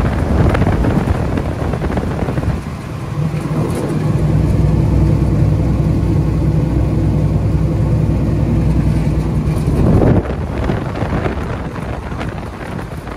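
Wind buffeting the microphone, then a loud, steady low machine hum that lasts about seven seconds and cuts off suddenly, with the wind noise returning.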